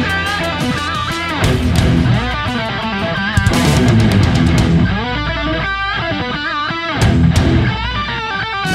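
Background rock music, with an electric guitar playing a bending, wavering lead melody over bass.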